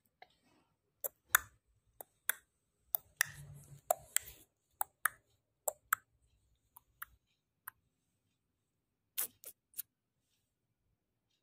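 Handling noise: irregular sharp clicks and taps, about twenty spread over nine seconds, with a short rustle about three seconds in, as a hand rubs a sleeping kitten's fur close to the recording phone.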